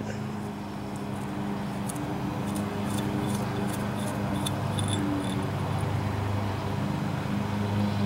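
A steady low machine hum runs under faint, scattered light clicks from small metal carburetor parts being handled as the brass main jet and emulsion tube is turned out by hand.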